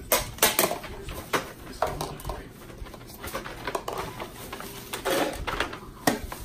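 Clear plastic storage containers being handled: a run of short clicks and knocks of hard plastic lids and bins, with the rustle of a plastic bag about five seconds in.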